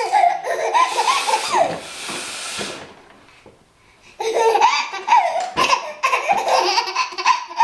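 A woman blowing her nose, a noisy blast that fades out over the first few seconds, then after a short lull, about four seconds in, a baby laughing in repeated belly laughs.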